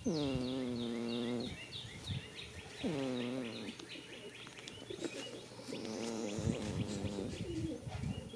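Goat snoring in its sleep: a long breath that drops in pitch and then holds, another like it about three seconds in, then rougher, uneven snoring. Small birds chirp in quick descending notes throughout.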